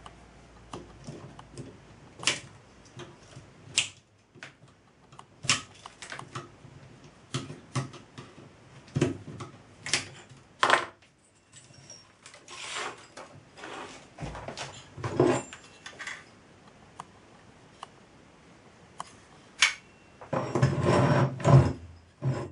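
Plastic cable ties being removed from a model steam engine's boiler: irregular sharp clicks and plastic rattling on a wooden bench. Near the end comes a louder clattering rumble as the metal model is turned around on the bench.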